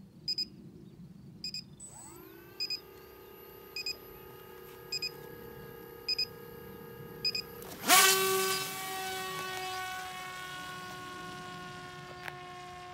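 Electric motor and propeller of a foam FPV flying wing: short electronic beeps in pairs repeat about once a second while the motor spins up to a steady whine about two seconds in. About eight seconds in it jumps to full throttle with a loud rush at the hand launch, then holds a higher whine that slowly fades as the wing flies away.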